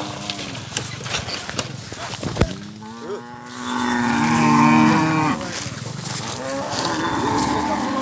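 A cow mooing: one long moo starting about two and a half seconds in and lasting nearly three seconds, then a second moo near the end.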